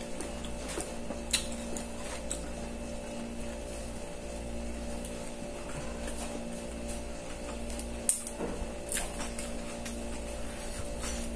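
A steady electrical hum in a small room, with a few faint clicks and taps as food is eaten by hand from a plate, the clearest about a second in and again around eight and nine seconds.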